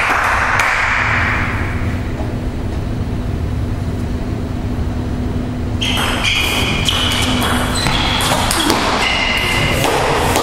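Table tennis rally: the ball clicking off the bats and the table in a quick run of sharp pings starting about six seconds in and stopping near the end, over a steady low hum of the hall.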